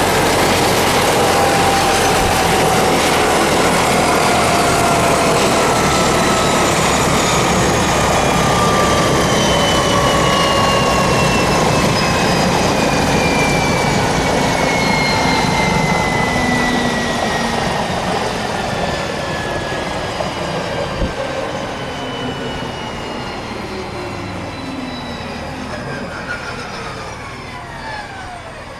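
Leonardo AW169 twin-turbine helicopter running down: several whining tones slide slowly lower in pitch while the sound grows steadily quieter over the second half.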